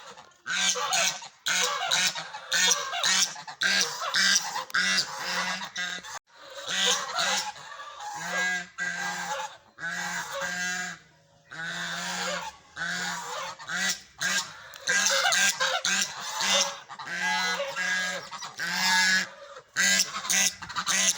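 Duck calling over and over, fast runs of short, squeaky quacks with brief breaks between the runs.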